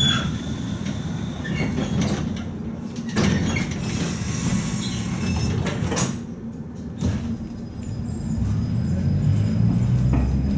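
Interior sound of a 71-619A tram car: a steady low rumble with several sharp knocks and clicks spread through, the rumble growing heavier near the end.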